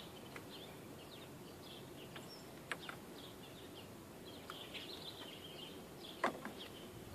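Faint outdoor background with scattered small bird chirps and two light clicks, one a few seconds in and one near the end.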